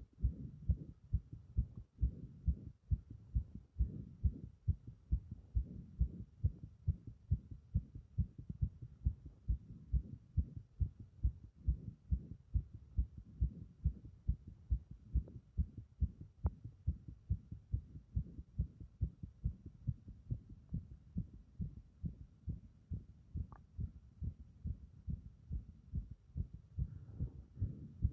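Fast, strong heartbeat: low thumps repeating in a steady, even rhythm.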